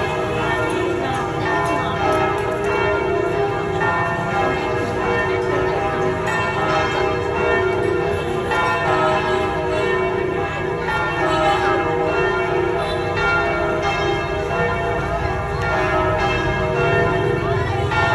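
Church bells of St. Joseph's Cathedral in Hanoi pealing, several bells struck in quick succession so that their tones overlap into one steady ring.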